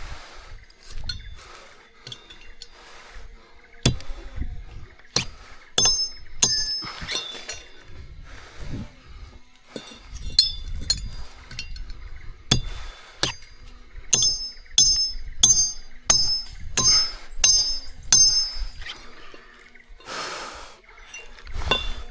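A long run of irregular sharp clinks and knocks, many ringing briefly and high, coming in quick clusters through most of the stretch.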